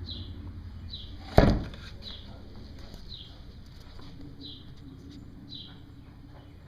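A bird calling outdoors-style short falling chirps, repeated about once a second, with a single loud thump about a second and a half in.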